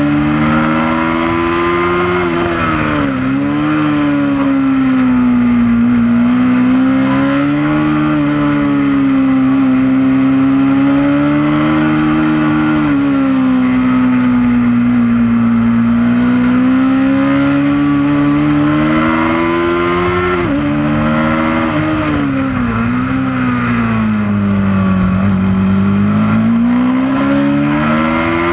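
Honda CB500 parallel-twin engine under hard riding on a race track, revs climbing and falling through the gears with quick drops in pitch at gear changes, over steady wind rush on the mudguard-mounted camera.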